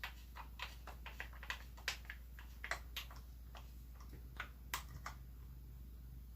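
Faint, irregular small clicks of a Phillips screwdriver turning the stock screws into a Commando Mark 45 Tommy-gun clone; the clicks thin out after about five seconds.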